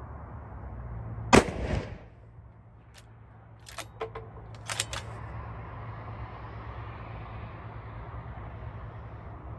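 A single shot from a Victrix Venus T bolt-action rifle chambered in 6 XC, a sharp crack with a short ringing tail about a second in. About two to three seconds later come a series of small metallic clicks as the bolt is worked to eject the spent case.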